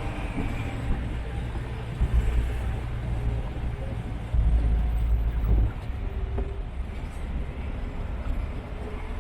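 Inside a moving bus: a steady low engine and road rumble, which swells heavier for about a second and a half in the middle.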